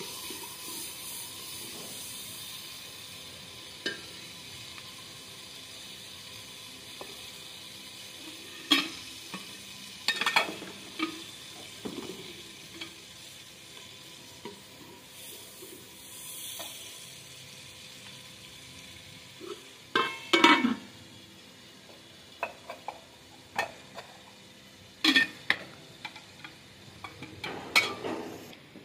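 Onions and masala frying in hot oil for a dal tarka, a steady sizzle that fades over the first half. A spoon stirring the pan knocks and scrapes against it in short bursts, loudest about two-thirds of the way through.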